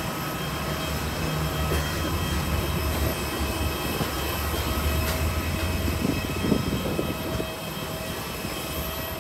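Steady low engine drone with several high, steady whining tones over it, the mixed engine noise of an airport apron.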